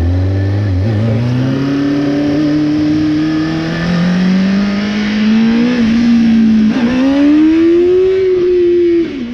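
Motorcycle engine and exhaust running under way, the pitch climbing steadily as it accelerates, easing off, then rising again and falling away near the end as the throttle closes. The exhaust note is even, its leak freshly spot-welded, with no backfire popping as the revs drop.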